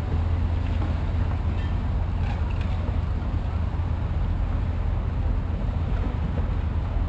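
Steady low rumble of city street traffic, with cars passing through the intersection.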